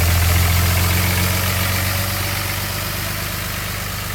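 Cummins straight-six turbo-diesel of a 2004 Dodge Ram 3500 idling steadily with a low hum, easing a little in loudness toward the end.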